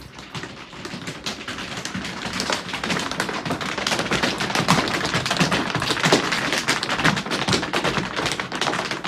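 Many tap shoes striking a wooden studio floor at once as a group of tap dancers dances together. The taps come as a dense, overlapping clatter that grows louder over the first few seconds.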